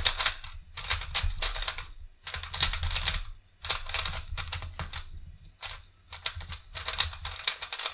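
GAN 356 i Carry magnetic smart cube being turned fast during a speedsolve: quick runs of clicking and clacking as the layers turn, broken by a few short pauses.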